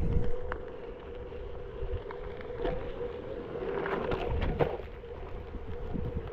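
Onewheel electric board's hub motor whining steadily as it rolls slowly over a gravel trail, with a few crackles of the tyre on gravel about three to four and a half seconds in and wind rumbling on the microphone.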